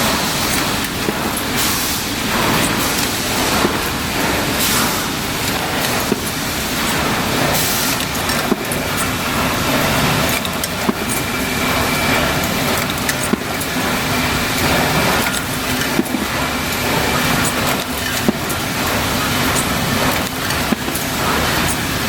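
Industrial machinery running steadily, with a constant hum and frequent irregular clicks and clatter.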